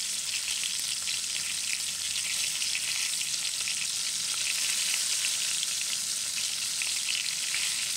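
Flour-dredged chicken pieces frying in a stainless-steel sauté pan: a steady, gentle sizzle with fine crackling as the chicken browns slowly.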